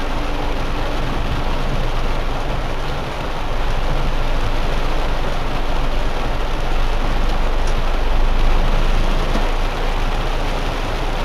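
Heavy rain pelting a car's windshield and roof, heard from inside the cabin as a steady dense hiss, with the low rumble of the moving car underneath.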